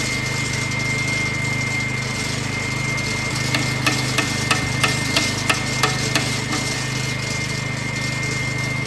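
Petrol walk-behind concrete floor saw running with its blade in a wet cut in the slab: a steady engine drone with a steady high whine, as it cuts expansion joints in the new concrete floor. A quick run of about nine sharp clicks, roughly three a second, comes a few seconds in.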